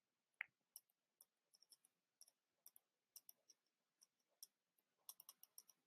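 Near silence with faint, scattered small clicks: one slightly louder about half a second in, and a few closer together near the end.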